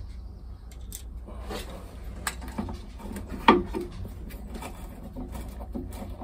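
Screwdriver and hands working a small fitting onto the mounting panel by the battery isolator: scattered light clicks and knocks, with one sharper knock about halfway through, over a low steady hum.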